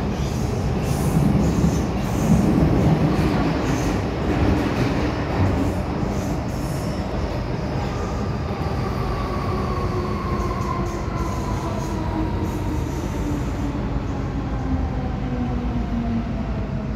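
MTR M-Train electric multiple unit running in the tunnel, heard from inside the car: a steady rumble of wheels on rail with hiss, a little louder in the first few seconds. From about halfway through, a motor whine slowly falls in pitch as the train slows.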